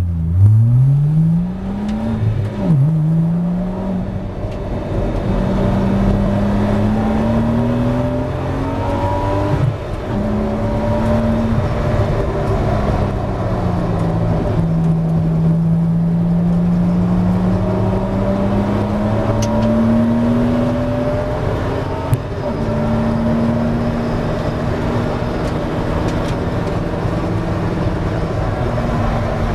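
2004 Porsche 986 Boxster S race car's flat-six engine, heard from inside the cockpit, pulling away and accelerating through the gears. The pitch climbs and drops back at upshifts about three and ten seconds in, sags under braking about a quarter of the way from the end of the first half, then climbs again to a steady high note at speed.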